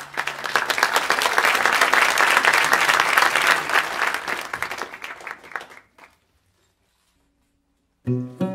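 Audience applause, fading out about six seconds in. After a short silence, a long-necked plucked lute starts playing near the end.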